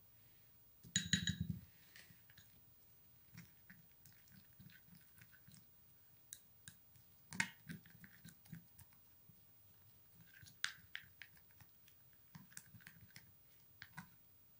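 Plastic spoon stirring a thick, wet paste in a small glass bowl: faint scraping and light irregular taps against the glass, with a louder ringing clink about a second in.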